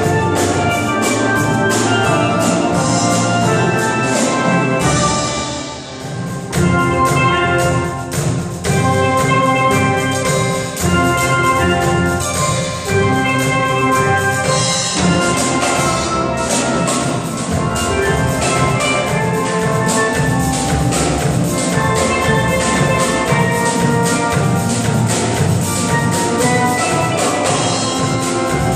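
Steel pan ensemble playing a lively tune on many steel drums over a drum kit, the bright pitched pan notes struck in a steady rhythm. The music dips briefly about six seconds in, then picks up again at full level.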